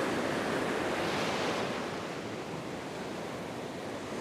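Ocean surf breaking and the wash running up the sand, a steady hiss that is louder in the first second or so and then eases off.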